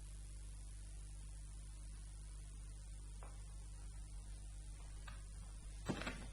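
Steady electrical mains hum with hiss from the recording chain, with a few brief clicks near the end.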